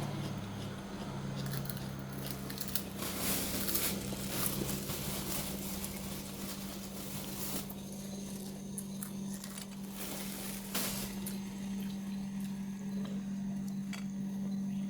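Close-up sounds of someone chewing fried instant noodles: soft wet squishes with a few brief crunches, over a steady low hum.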